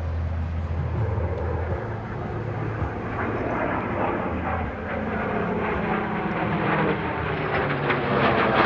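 An FG-1D Corsair's radial piston engine and an F/A-18F Super Hornet's twin jet engines flying overhead in formation. Their combined engine roar grows louder toward the end as the pair pass over.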